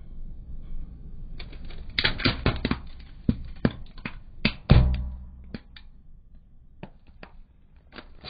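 Car tyre rolling over and crushing a fluffy toy chick with plastic feet on gravel: a quick run of cracks and crunches, the loudest with a heavy thud near the middle, then a few scattered clicks.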